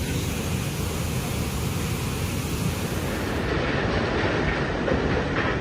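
Steady, loud rushing noise with no clear pitch or rhythm. Its character changes about three and a half seconds in.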